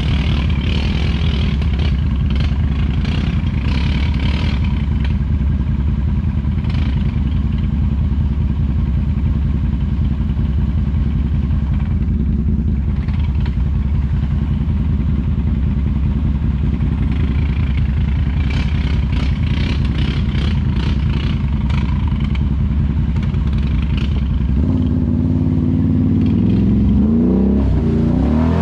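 An ATV engine running steadily under way, with bouts of rattling and clatter. Near the end the engine revs up, its pitch rising and falling.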